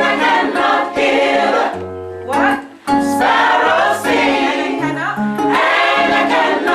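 Gospel choir singing in parts over instrumental accompaniment with a bass line, the held chords changing every second or two.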